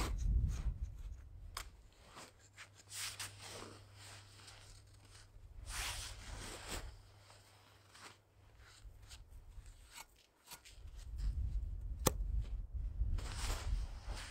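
Gloved hands scooping and packing snow against a stainless-steel frame: irregular soft crunches and scrapes, with a sharp click near the end.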